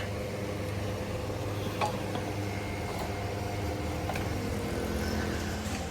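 A steady mechanical hum with a couple of light clicks about two and four seconds in.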